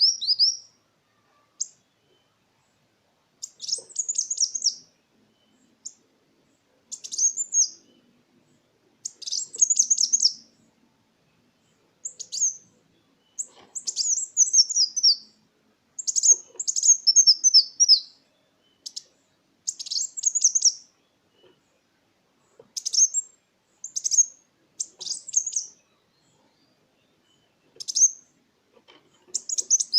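Kolibri wulung sunbird singing: about a dozen short, high, rapid phrases of quick chirping notes, many stepping downward in pitch, each up to about two seconds long with short pauses between.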